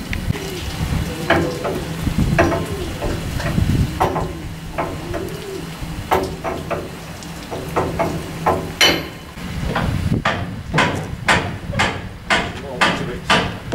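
Repeated sharp metallic clanks and knocks from crew working on a steam locomotive on shed, scattered at first over a steady low hum, then a quick, fairly regular run of strikes about two to three a second from about ten seconds in.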